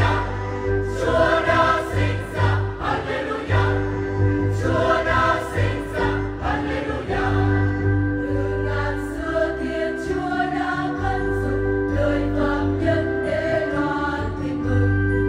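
Church choir singing a Vietnamese Catholic Christmas hymn, voices holding long notes over a steady low bass accompaniment.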